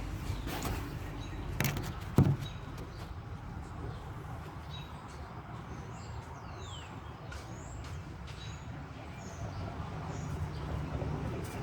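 A few knocks and clicks in the first couple of seconds, the loudest a little after two seconds in, then faint bird chirps, one of them a quick falling note, over a low steady hum.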